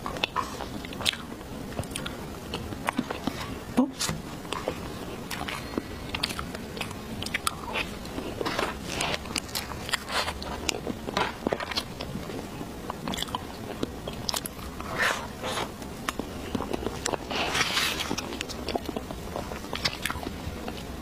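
Close-miked eating sounds of chocolate cake: irregular chewing, lip smacks and small clicks, some from the metal spoon.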